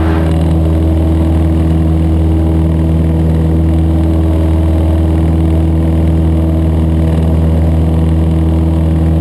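Cessna 152's four-cylinder Lycoming engine and propeller running steadily at climb power, heard from inside the cockpit.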